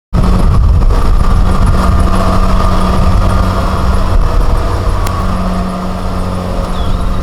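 Kubota DC70 combine harvester's diesel engine running steadily, a loud low drone with a rumbling low end.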